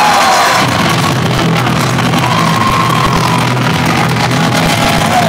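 Music over a loud arena crowd, with shouts and whoops rising above it now and then.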